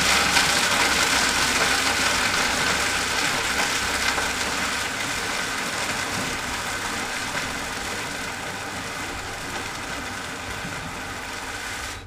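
High-speed countertop blender running, grinding a batch, with a steady motor-and-blade noise that eases slightly as it goes and cuts off near the end.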